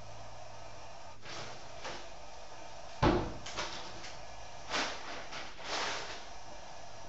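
Several short, irregular knocks and thumps over a steady hiss, the loudest about three seconds in.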